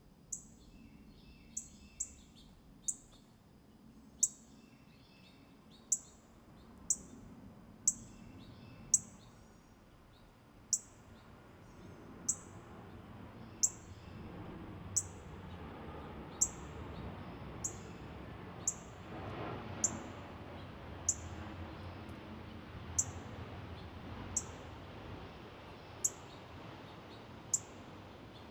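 A songbird repeating a short, high, sharp call note that drops quickly in pitch, about twenty times, roughly every second to second and a half. Fainter, lower chirps from other birds come in the first several seconds.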